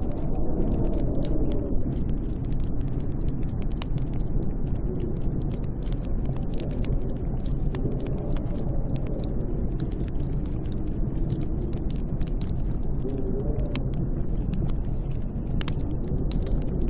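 Snowstorm wind blowing steadily: a deep, continuous rumble with slowly wavering howls, and many small sharp ticks scattered throughout.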